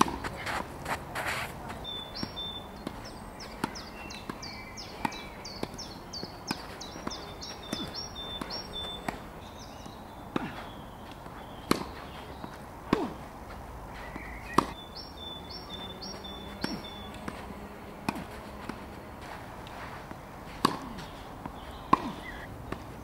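Tennis balls struck by rackets in a rally: sharp pops every second or two, with lighter bounces and footsteps between them. Twice a bird sings a fast run of repeated high notes, early on and again about midway.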